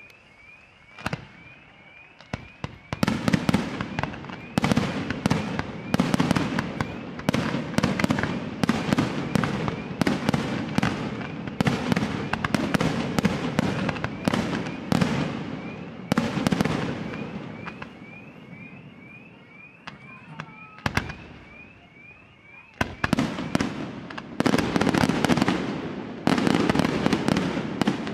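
Aerial firework shells bursting in rapid volleys of bangs and crackle. A couple of single reports come first, then dense firing for about fourteen seconds. After a lull of a few seconds, dense firing resumes near the end.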